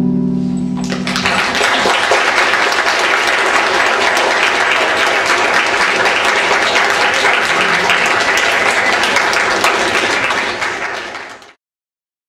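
The last chord on a Casio Privia digital piano dies away, then an audience applauds for about ten seconds. The applause cuts off suddenly near the end.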